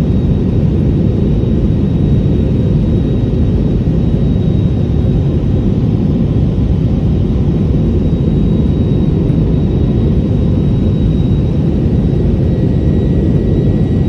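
Cabin noise of an Airbus A320-family jet airliner in cruise flight: a steady low rumble of the jet engines and airflow, with a faint steady high whine over it.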